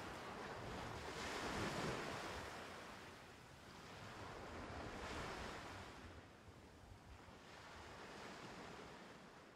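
Rushing sound of sea waves washing in, swelling three times and fading out near the end.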